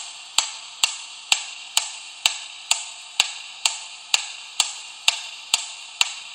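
A steady ticking of sharp clicks, about two a second, each followed by a short fading hiss.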